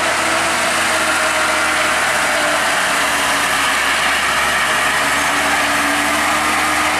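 Heavy diesel truck engine running steadily and loud, close by, under an even roar of engine noise as a loaded truck pulls slowly uphill.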